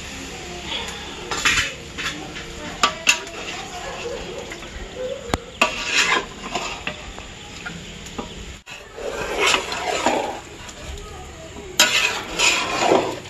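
A spoon stirring mutton and masala in a cooking pan, scraping and clanking against the pan again and again, over light sizzling.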